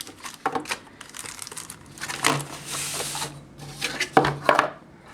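Packaging being handled: crinkling and rustling, with scattered sharp clicks and a cluster of clicks about four seconds in.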